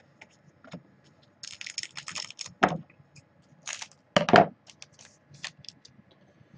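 Crinkling of a trading-card pack wrapper being handled, then scissors cutting it open, with two louder cuts about a second and a half apart near the middle, and light clicks of cards being handled.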